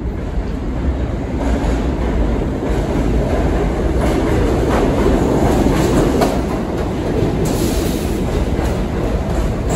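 R68 subway train entering an underground station: its deep rumble and wheel noise build as it approaches and are loudest about halfway through as the cars pass close by, with a few clacks of wheels over rail joints.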